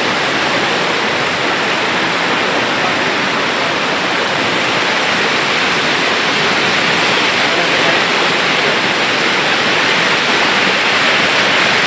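Flash-flood torrent of muddy water rushing down a rocky mountain stream bed, a loud, steady rushing noise.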